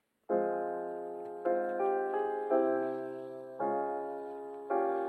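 Slow, soft keyboard music: sustained chords, a new chord struck about once a second, each ringing and fading before the next.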